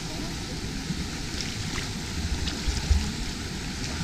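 Steady rush of running water, with a few low rumbling thumps and faint scattered ticks.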